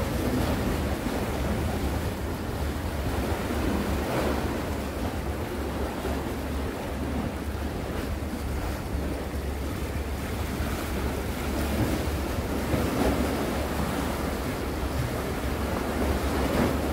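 Wind buffeting the microphone over the steady wash of sea waves, swelling a little now and then.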